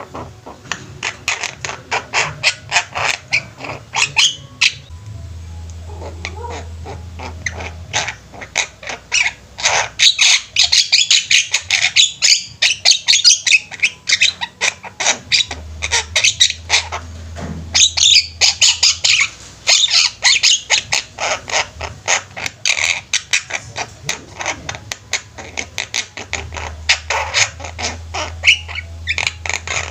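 Several Javan mynas calling together in full voice: a dense, nonstop stream of rapid harsh squawks and chattering calls, loudest through the middle stretch.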